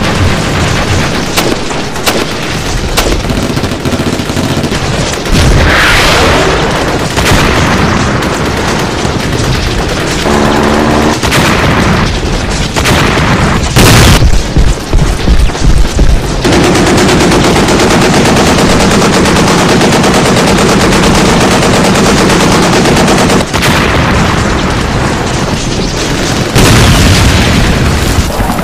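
Battle sound effects: rapid gunfire and machine-gun bursts mixed with booming explosions. A falling whistle comes about six seconds in, and the loudest, choppy bursts come about halfway through. Fire is steady and dense through most of the second half.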